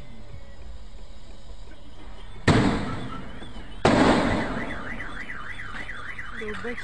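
Two sharp, loud bangs about a second and a half apart, then a car alarm starts up, its siren warbling rapidly up and down.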